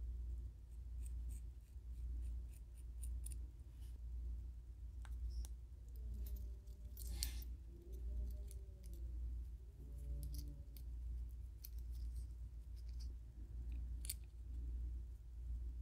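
Small metal clicks and ticks of twisted-wire hinge eyes and rings being handled and hooked together as lure body sections are joined, with a brief rustle about seven seconds in, over a steady low hum.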